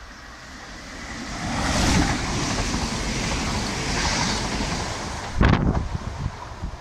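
Chiltern Railways diesel multiple unit running through the station at speed. The rush of the train and its wheels on the rails builds and stays loud for a few seconds, with wind buffeting the microphone. A sharp loud gust comes about five and a half seconds in as the tail passes, then the sound falls away.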